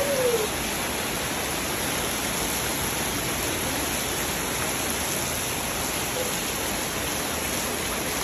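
Rainwater pouring in streams off a roof edge and splashing onto a flooded tiled floor, heard as a steady rushing hiss of falling and splashing water.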